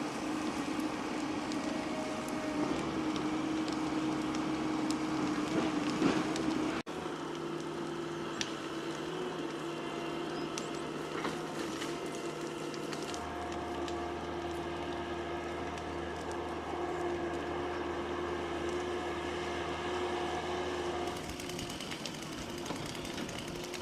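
Engine running at a steady speed, holding one even pitch, with the sound changing abruptly twice.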